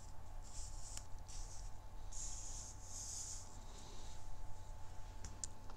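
Tarot cards being slid and brushed across a tabletop by hand: a series of soft rustling strokes, the longest a little after the middle, with a faint low hum underneath.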